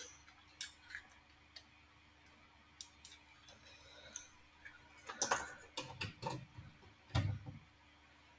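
SD card and SD card reader being handled and plugged into the computer: scattered small plastic clicks, a busier patch of handling noise about five seconds in, and a louder knock with a dull thud about seven seconds in.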